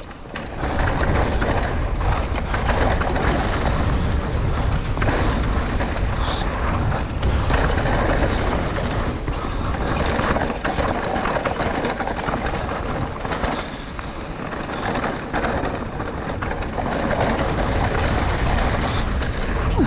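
Trek Rail e-mountain bike riding down a rough dirt trail: tyres rolling over dirt, rocks and roots, with the bike rattling and knocking over the bumps and wind on the microphone. It gets much louder about a second in as the bike picks up speed.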